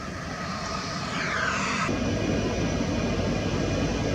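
Jet airliner engine noise heard from the ground: a whine sweeping downward in pitch, then an abrupt cut about two seconds in to a steady, louder, deeper rumble.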